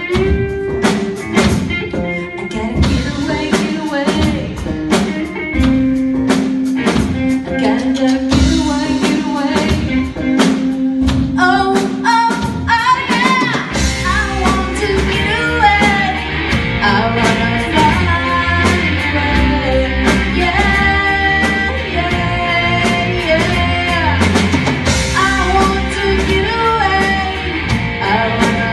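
Live rock band playing loud. For the first half, drums and guitars play with a long held note. About thirteen seconds in, the bass comes in strongly and a woman sings over the full band.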